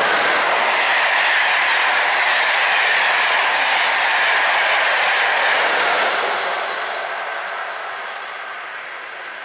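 Passenger coaches of a Class 90 electric-hauled train passing close by at speed: a loud, steady rush of wheels on rail with a whine that slowly falls in pitch, fading away after about six seconds.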